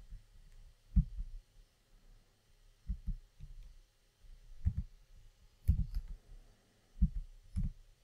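Scattered keystrokes on a computer keyboard: soft, low taps at irregular intervals, some in quick pairs.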